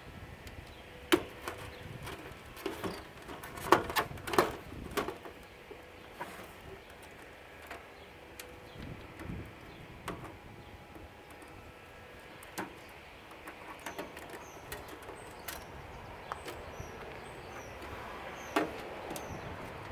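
Scattered clicks and clinks of hand tools and small parts being handled while a CRT security monitor is taken apart, busiest in the first five seconds, with a single sharper knock near the end. Birds chirp faintly in the background during the second half.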